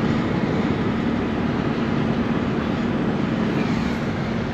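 Minibus driving at highway speed, heard from inside the cabin: a steady low engine hum under even road noise.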